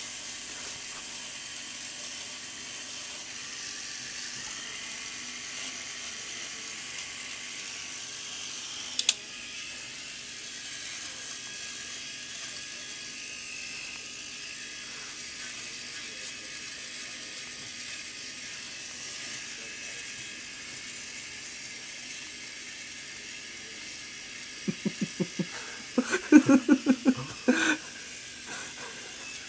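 Remington three-head rotary electric shaver running steadily while trimming a mustache, with a single click about nine seconds in. Near the end, a man's voice makes a run of short, rhythmic sounds over the shaver.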